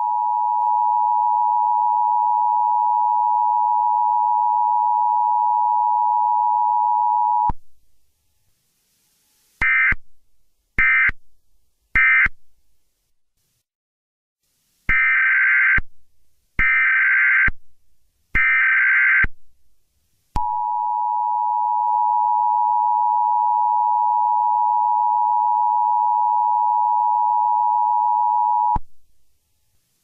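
Synthetic electronic tones: a steady two-note drone held for about seven seconds, then three short higher-pitched beeps followed by three longer ones, then the steady drone again, cutting off near the end.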